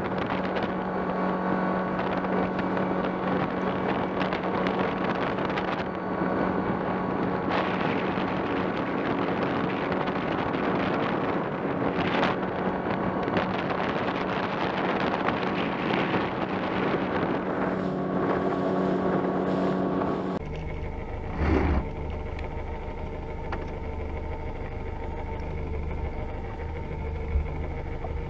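Boat's outboard motor running at speed with a steady tone, over wind and water rush. About 20 seconds in the sound changes to a lower, quieter steady engine hum, with a couple of short knocks.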